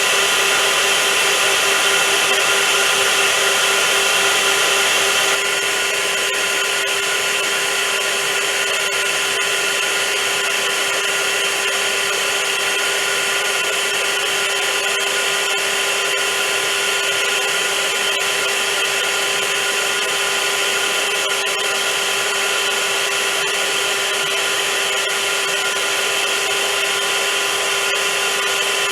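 Vacuum cleaner running steadily: a constant motor whine over a loud rushing hiss, which drops slightly in level about five seconds in.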